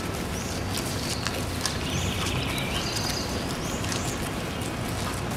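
Outdoor ambience of a group walking on wet paving: a steady low rumble, scattered footstep clicks and a few short rising bird chirps.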